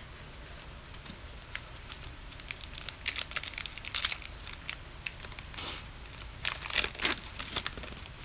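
Baseball card pack wrapper being torn open and crinkled by hand: a run of sharp crackles and tearing from about three seconds in, dying down after about seven seconds.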